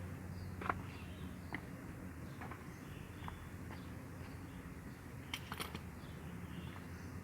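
Scattered light clicks and taps over a steady low hum, with a brief cluster of clicks near the end.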